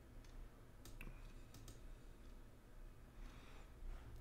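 Several faint computer mouse clicks, most of them in the first two seconds, over quiet room tone.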